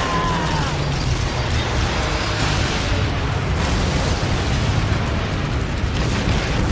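Film battle sound effects: bombs exploding on a warship, one continuous mass of blasts and debris noise with no let-up. A man's scream falls away in the first second.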